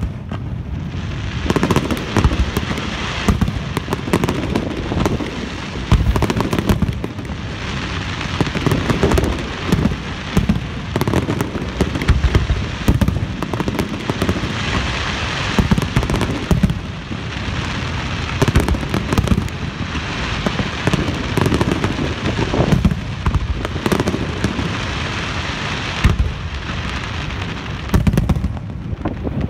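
Aerial fireworks shells bursting in a long run of frequent, irregular bangs, over a steady crackling hiss.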